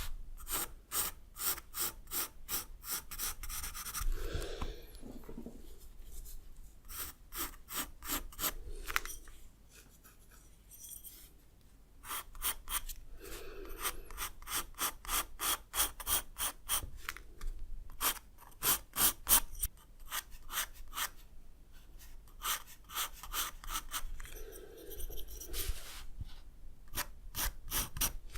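Rapid, rhythmic drawing strokes on paper, about three scratchy strokes a second, as shading or hatching is laid down, pausing briefly a few times with soft breaths in between.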